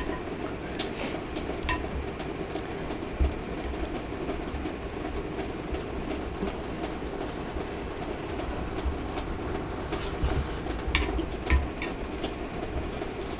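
Steady low hum with a few light clicks and clinks of cutlery on dishes, a handful early on and a small cluster near the end.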